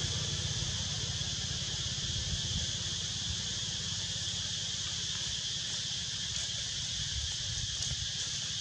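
Steady chorus of insects, a constant high-pitched buzzing hiss, over a low rumble.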